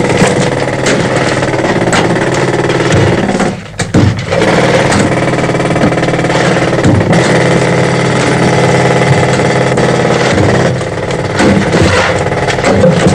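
Pneumatic pick hammering steadily into a coal face. It breaks off for a moment about three and a half seconds in, then runs on.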